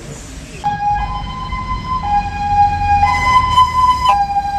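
Ambulance two-tone siren starting up about two-thirds of a second in, switching between a lower and a higher note about once a second, over the low rumble of the vehicle's engine.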